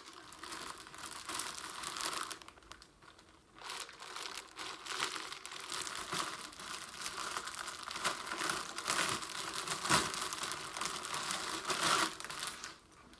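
Packaging crinkling and rustling as contents are unwrapped from a collector's box, in a dense run of crackles that eases briefly about three seconds in.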